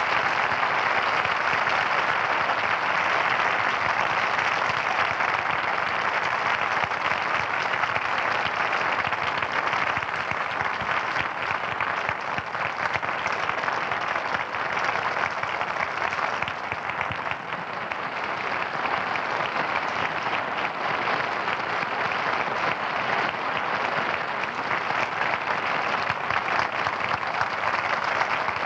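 Studio audience applauding steadily, a dense clapping that eases a little about two-thirds of the way through and then swells again near the end.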